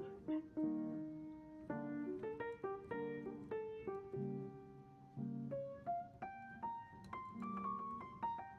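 Background piano music: a gentle melody of single notes and soft chords.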